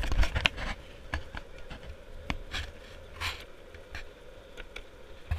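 Longboard rolling downhill on asphalt: a low, uneven rumble of wheels and wind on the microphone, with scattered sharp clicks and knocks.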